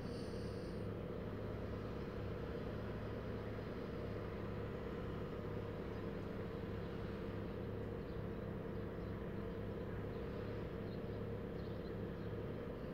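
Steady low hum inside a car, with a faint high tone for about the first second.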